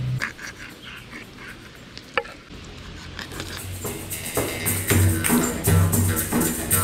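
Background music, quiet at first, then louder with a steady pulsing beat from about halfway through. A few light clicks and one sharp tap about two seconds in.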